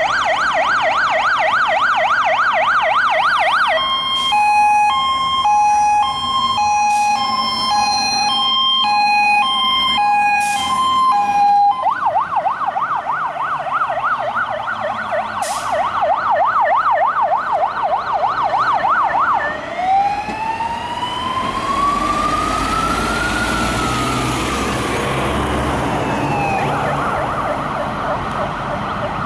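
Scania 94D fire engine's siren sounding on an emergency run: a fast yelp, then about 8 seconds of alternating stepped tones, then the fast yelp again, and near the end one slow wail rising and falling. The truck's diesel engine rumbles underneath as it passes, and the yelp returns at the end.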